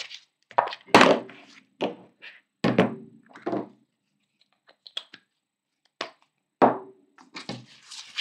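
Irregular light thunks and taps of craft tools being handled on a cutting mat: scissors laid down and a glue stick picked up. There is a lull about four to five seconds in.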